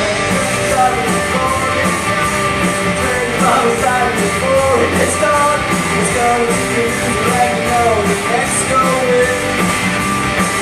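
Live rock band playing: electric guitars and a drum kit with steady cymbal hits, and a voice singing the melody over them.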